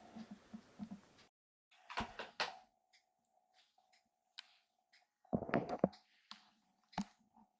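Scattered soft knocks, thumps and rustling: a few taps about two seconds in, and a louder scuffle in the second half, over a faint steady hum.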